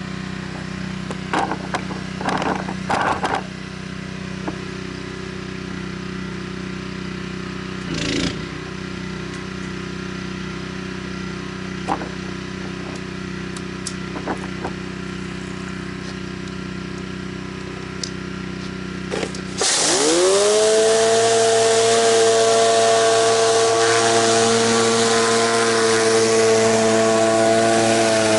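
Gas pressure washer engine running steadily with a few clicks and knocks. About two-thirds of the way in the spray starts: a loud hiss of high-pressure water with a rising whine that settles to a steady pitch as the surface cleaner's spray bar spins up on concrete.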